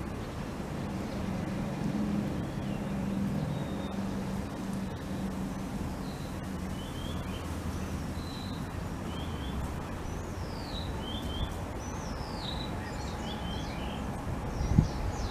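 Outdoor ambience: a steady low hum of distant traffic, with a small bird chirping in short falling notes that come more often toward the end. Near the end, wind buffets the microphone.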